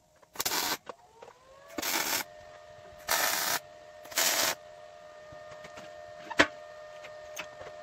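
Four short blasts of compressed air, each about half a second long and a little over a second apart, from a tool on an air hose. Under them a small air compressor runs with a steady whine, and a single sharp click comes near the end.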